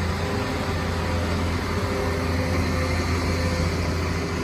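Volvo EW210D wheeled excavator's diesel engine running steadily with a low hum while the upper structure slews around on its hydraulics.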